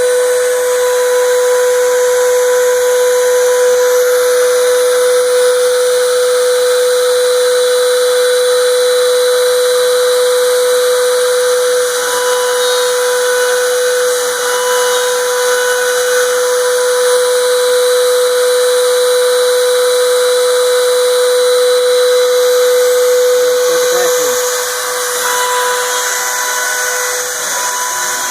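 CNC router spindle running at about 30,000 rpm with a 1/4" down-spiral carbide bit, a steady high whine over a constant hiss while it mills MDF.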